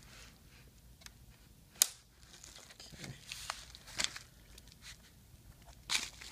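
Plastic clips of a laptop screen bezel snapping loose as a card is pried along the edge, with scraping and crackling in between. One sharp snap comes about two seconds in, followed by several smaller snaps.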